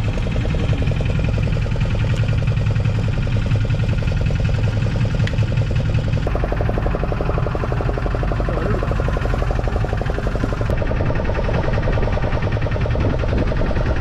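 Small fishing boat's engine running steadily, a fast even throb, with its sound changing about six seconds in.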